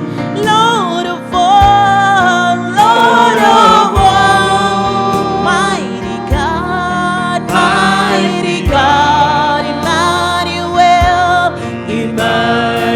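Gospel worship song: voices singing together over a band with keyboard and drums.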